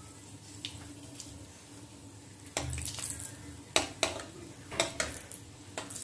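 Wooden spatula stirring in a metal kadhai, scraping and knocking against the pan several times in the second half, over a faint sizzle of dried red chillies frying in a little oil.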